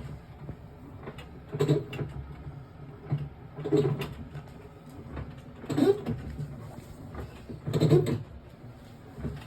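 AQUA Prette 14 kg washing machine running with an abnormal noise that comes back about every two seconds over a steady low hum. It is the sign of a fault the owner cannot yet explain and has called in a repair for.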